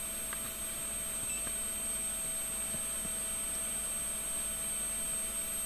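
Steady background hiss with faint, constant high-pitched electronic tones.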